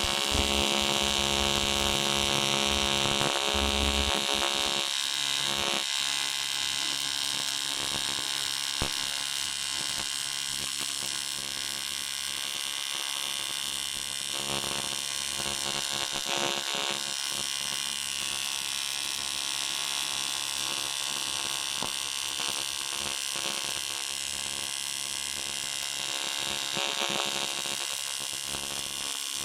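AC TIG (argon-arc) welding arc on a cast aluminium steering knuckle, a steady buzzing hum with a hiss over it as the broken ear is built up with filler wire. It drops slightly in level about five seconds in.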